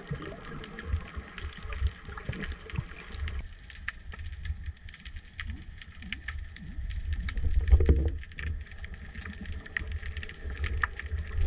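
Underwater sound of sea water moving against a submerged camera: a low rushing rumble that swells loudest about eight seconds in, with scattered faint crackling clicks.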